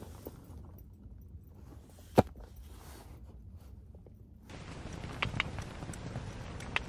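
Quiet handling of a plastic food container with one sharp click about two seconds in. A little past halfway, a steady patter of rain on the tent starts, with scattered drips ticking.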